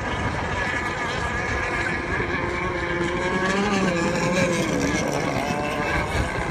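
Racing boat engines running at high revs as the boats race around the course, their pitch wavering and dipping about four to five seconds in as a boat passes.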